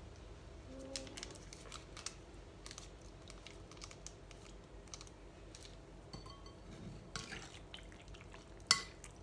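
Faint crinkles and small clicks of plastic sachets being torn open and squeezed over chicken pieces. Near the end a fork clinks sharply against a glass bowl, ringing briefly.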